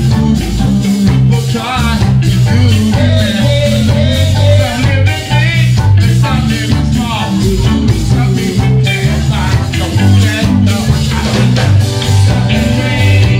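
A live reggae band playing, with a male singer over electric guitar, keyboard and a prominent bass line on a steady beat.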